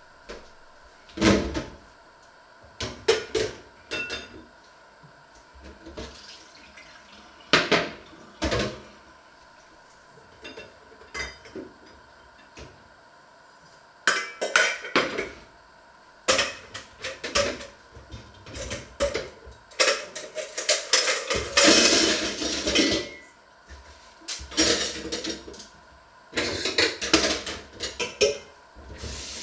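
Metal pots, pans and lids clattering and clinking in irregular bursts as cookware is handled at a stove and sink. A tap runs for a couple of seconds about two-thirds of the way through.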